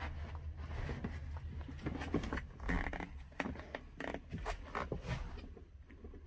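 Rustling and handling noise with irregular light clicks and knocks from a handheld camera being carried into a boat cabin, over a steady low hum.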